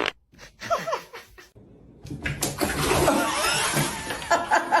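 Laughter, rising into a loud burst from about two seconds in and ending in rhythmic ha-ha pulses near the end.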